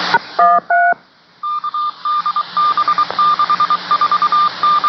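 Touch-tone signalling over a railroad two-way radio: the static hiss cuts off, two short dial tones sound, then a run of short, identical beeps repeats in quick groups of three or four.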